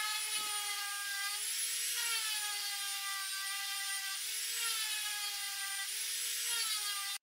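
Electric orbital sander running against the wooden top of a bookcase, a steady high whine whose pitch rises and dips a few times. It starts and cuts off abruptly.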